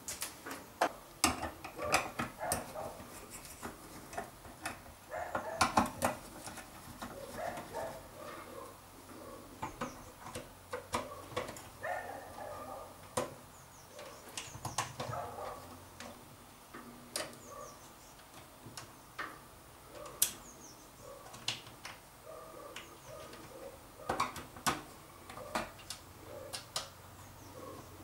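Close-up handling noise: irregular clicks, taps and rustles as the camera is handled and fingers work at the plastic wiring terminals of an inverter drive.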